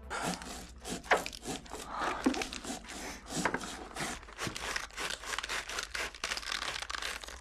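Wet crunching, crackling and tearing of a hand saw cutting through a corpse's neck: a gory horror-film sawing sound effect, an irregular run of crackles and squelches.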